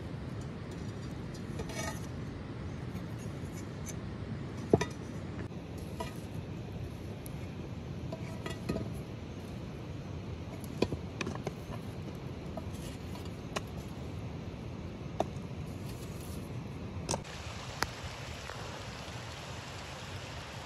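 Metal tongs clinking against a cast-iron pot lid and the dried-dung fuel being piled on it, a sharp clink every second or two, the loudest about a quarter of the way in, over a steady low background noise.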